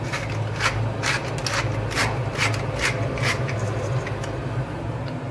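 Hand-held wooden pepper mill being twisted to grind pepper: a rasping grind in short strokes about twice a second, over a steady low hum.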